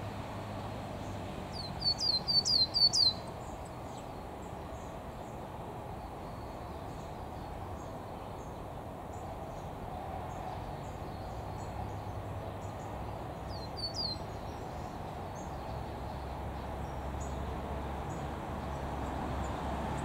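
Coal tit singing: a quick run of about six thin, high notes about two seconds in, then two more notes about two-thirds of the way through, over steady background noise.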